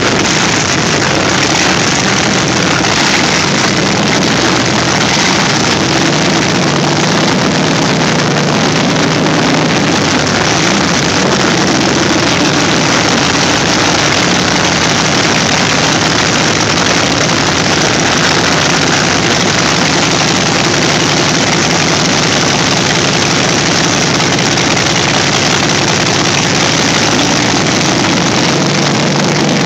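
The Packard Bentley's 42-litre Packard aircraft engine running steadily and loud through its short open stub exhausts, which spit flames as unburnt fuel ignites.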